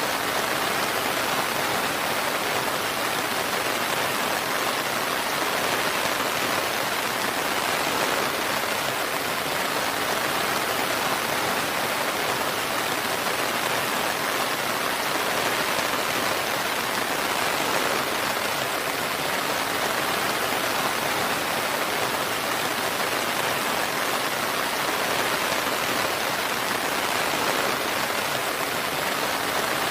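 Steady, even rain falling, a constant hiss of drops with no thunder.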